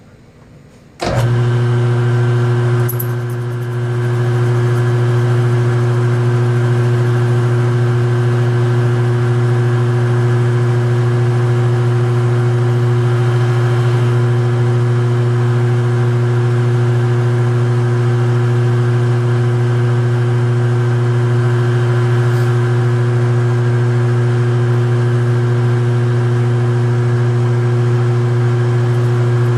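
Metal lathe switched on about a second in, then running steadily with a loud, even motor hum.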